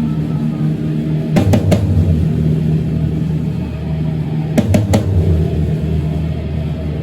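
Heavy metal band playing live: a sustained low guitar drone, broken twice by a quick group of three heavy drum hits about three seconds apart.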